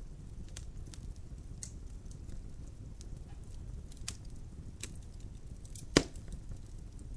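Wood fire burning in a fireplace: a low steady rumble with scattered crackles and one loud pop about six seconds in.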